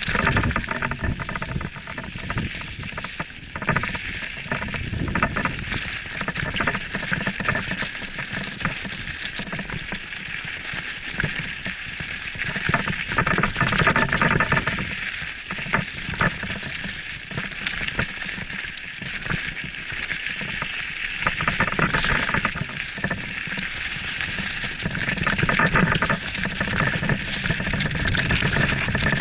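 Mountain bike tyres rolling fast over loose gravel and rock on a descent: a steady crunching crackle dense with small clicks and knocks.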